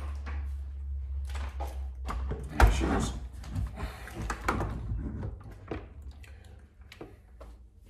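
A heavy thud about two and a half seconds in as the wheel-less Losi Super Baja Rey 2.0 chassis is set down on the workbench, followed by scattered knocks and clatter as it is handled, fading toward the end.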